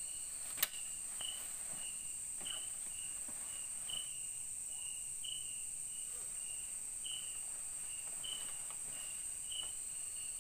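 Night insects in the forest: a steady high-pitched drone with a short chirp repeated about twice a second. A single sharp click about half a second in.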